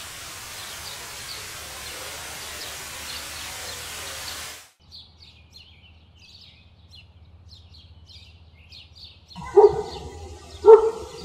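A waterfall's steady rush with faint bird chirps, which cuts off sharply to birdsong chirping on its own. Near the end a dog barks loudly, twice.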